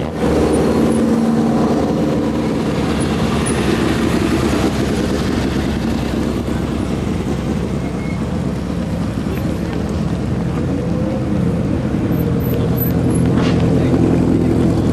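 Engines of open-wheel formula-style race cars running at low revs as the cars roll slowly past one after another, a steady drone with no hard acceleration.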